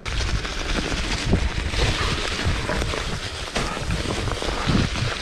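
Wind buffeting the camera microphone while riding a mountain bike, with rumble and short knocks from the tyres on the rough trail.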